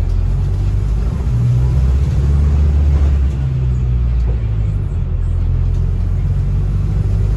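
Low, steady rumble of a bus's engine and running gear heard from on board while it travels, swelling slightly a couple of times.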